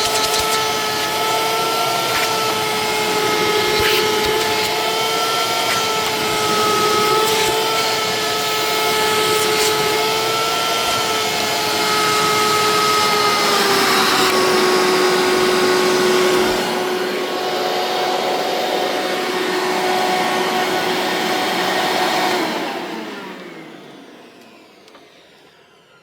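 Hoover Turbopower 1700 upright vacuum cleaner running, a steady motor whine with a rushing of air. Its pitch drops slightly partway through. Near the end it is switched off and fades away as the motor winds down.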